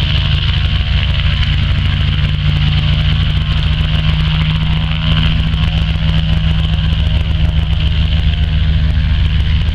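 The nine-cylinder radial piston engine of an Antonov An-2 biplane running steadily on the ground at low power, its propeller turning. The level steps up slightly about five seconds in.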